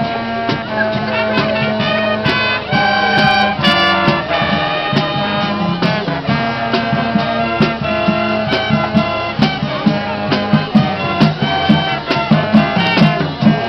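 High school marching band playing: brass carrying the tune over drums striking a steady beat.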